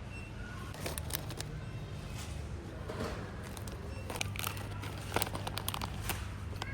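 Background noise: a steady low hum with scattered clicks and rustling.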